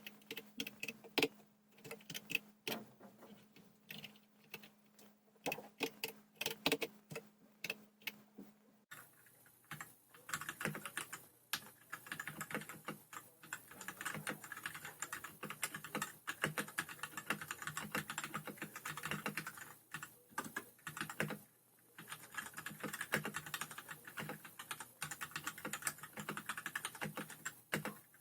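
Royal Kludge RK100 mechanical keyboard with linear red switches being typed on. First come scattered single keystrokes, then steady fast typing from about nine seconds in, with a brief pause a little past twenty seconds.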